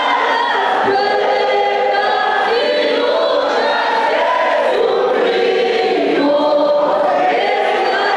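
Mixed choir of men and women singing a Spanish-language gospel song together, holding long notes that change every second or so.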